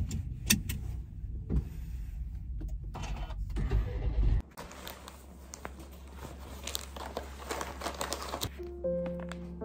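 Rustling and clicks from a person settling into a car seat, inside the car's cabin, over a low rumble that cuts off sharply about four and a half seconds in. Softer handling noises follow.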